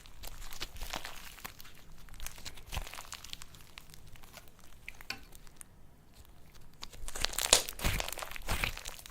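Slime being squished and worked by hand, with dense crunchy crackling and clicking. It goes quieter through the middle, then grows louder in a burst of crackles near the end.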